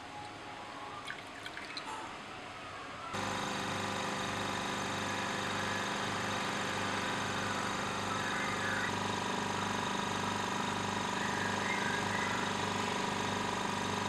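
Liquid being poured into a Büchner funnel, then about three seconds in a vacuum filter pump switches on and runs with a steady hum, drawing the liquid through the filter.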